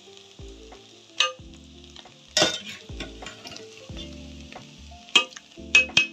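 Metal spoon knocking and scraping against an aluminium cooking pot while chicken masala is spread over rice, over a faint steady sizzle from the pot on a low gas flame. About five sharp clanks, the loudest about two and a half seconds in.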